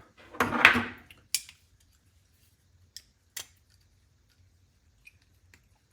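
Metal clicks of a Leatherman multitool being handled, its folding tools snapping into and out of place. It is a handful of short, sharp clicks spread several seconds apart.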